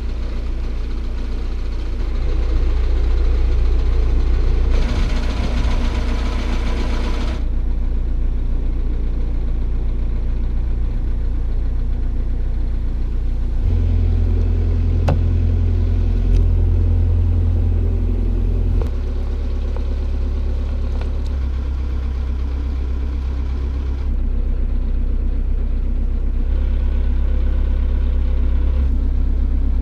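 Narrowboat's diesel engine running steadily while cruising, with a brief rush of noise about five seconds in and a louder, deeper stretch of about five seconds in the middle.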